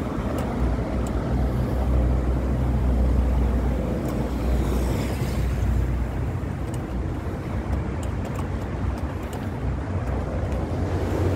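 A vehicle's engine running steadily while travelling along a road, with a deep low rumble.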